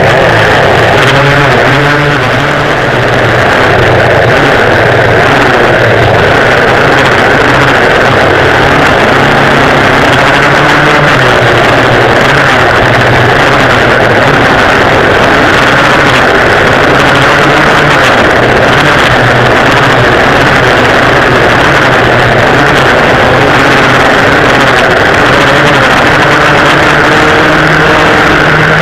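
Two engines of a dual-rear-engine vintage racing kart heard on board, running hard under racing throttle. The note shifts up and down through the corners and is very loud close to the microphone.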